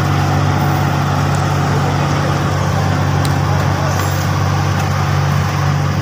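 Diesel engine of a Vögele Super 1400 asphalt paver running steadily with a deep, even drone while the machine lays asphalt.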